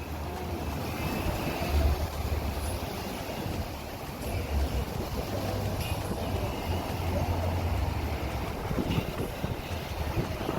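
Wind buffeting the microphone in uneven low gusts, over a steady rushing outdoor noise.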